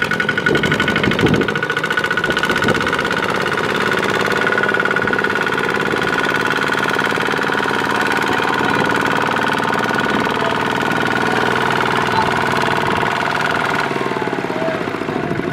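Farm machinery diesel engines, from the rice harvester and the tractor, running steadily under load in the mud. A steady high whine rides over the engine sound and cuts off about a second and a half before the end.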